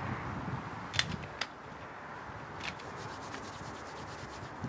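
A person's hands being rubbed together briskly in quick strokes to warm them against the cold, after a few sharp clicks about a second in. A low wind rush sits underneath.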